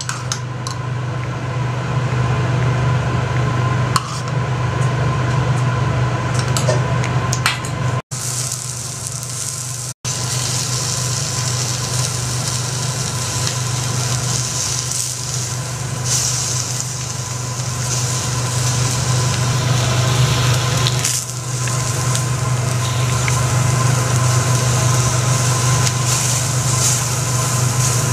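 Food sizzling steadily on a teppanyaki iron griddle, with occasional sharp clicks of a metal spatula against the plate, over a steady low hum.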